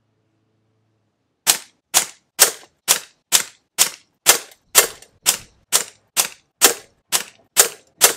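PP700SA .22 PCP air pistol firing a rapid string of shots from a full charge, a sharp crack about twice a second. It starts about a second and a half in.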